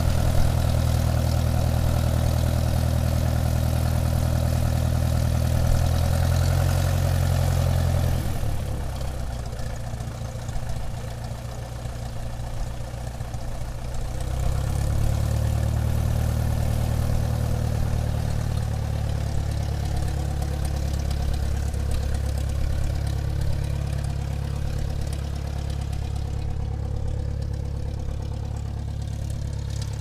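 Airplane engine running steadily at low power as the aircraft taxis, a low pitched drone. About eight seconds in it drops away and comes back strongly some six seconds later, then slowly fades.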